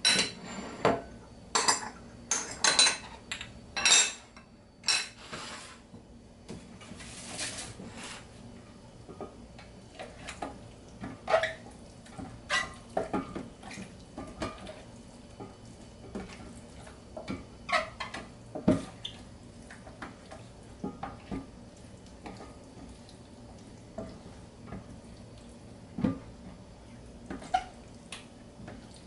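Irregular clinks and clatter of a utensil against a bowl as chicken wings are mixed with spices. The clatter is busiest and loudest in the first five seconds, then comes in scattered single knocks.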